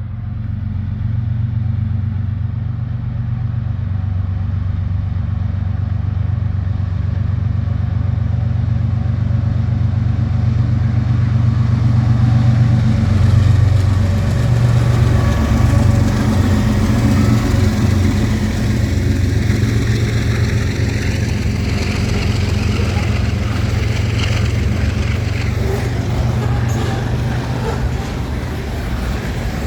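General Electric diesel locomotive engine running with a steady low rumble, then revving up: it swells about halfway through and grows harsher and noisier, with more high-pitched sound, over the second half.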